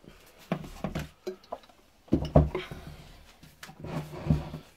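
Knocks and thuds of a small water-filled oak barrel being handled and turned over on a table, several irregular bumps, the loudest a little after two seconds in.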